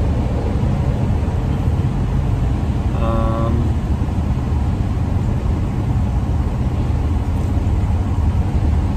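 Steady low road and engine rumble of a moving vehicle. A short pitched sound of about half a second comes about three seconds in.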